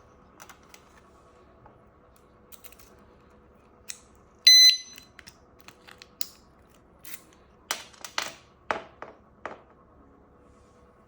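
Alarmed motorcycle disc lock giving one short, high electronic beep about halfway through, amid small clicks and several knocks.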